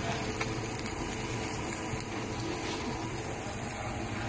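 Sardines, prawns and fish fillets cooking on a grill: a steady hiss over a low hum.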